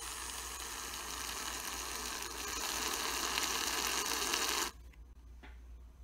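Aerosol can of shaving cream hissing as foam is sprayed out. The hiss grows louder about halfway through and cuts off abruptly near the end.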